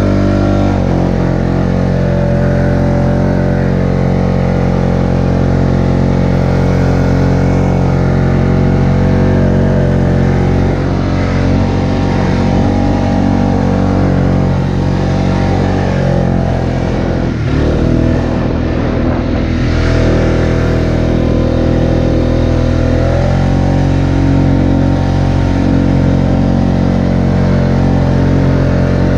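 Polaris four-wheeler (ATV) engine running steadily under throttle as it drives through snow, heard close up from the rider's seat. The engine note dips briefly a little past halfway, then picks back up and shifts slightly in pitch later on.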